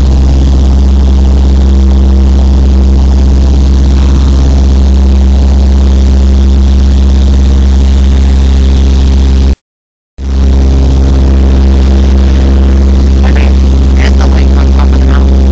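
Piston engine and propeller of a light high-wing aircraft droning steadily, heard loud inside the cabin. The sound cuts out completely for about half a second a little past the middle, then returns unchanged.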